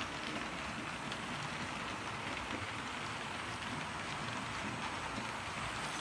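Model trains running on the track: a steady rushing rattle of wheels and motors.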